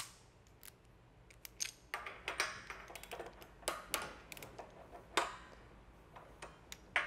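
Irregular metal clicks and clinks of a 36 mm 12-point socket being fitted onto a breaker bar and seated over a harmonic damper bolt, about a dozen light taps spread unevenly.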